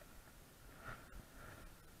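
Near silence, with a couple of faint soft sounds about a second in.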